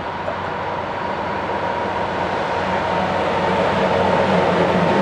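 MÁV class 418 (M41) diesel-hydraulic locomotive approaching with a passenger train, its engine growing steadily louder as it nears, with a steady high whine over the rumble.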